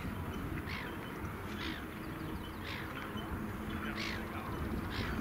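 A bird calling harshly five times, about once a second, over a low rumble of wind and background noise.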